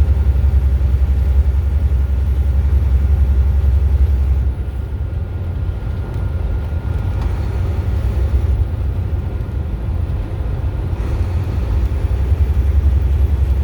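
Low, steady road rumble of a car driving at highway speed, made of tyre and wind noise. The rumble is heavier in the first few seconds, eases for a while, then grows heavier again near the end.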